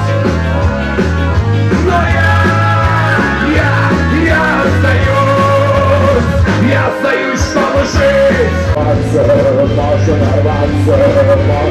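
Live rock band playing loud through a PA system, with a pulsing bass line and a male singer's voice.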